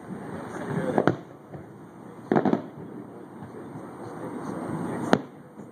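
Aerial fireworks shells bursting in the distance: a boom about a second in, a longer, heavier one around two and a half seconds, and a sharp crack near the end.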